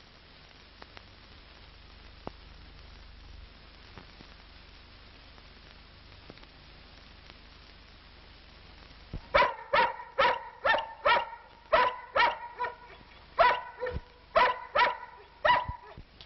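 A large shepherd-type dog barking in a rapid run of short barks, about three a second with a brief pause partway through, over the faint steady hiss of an old film soundtrack.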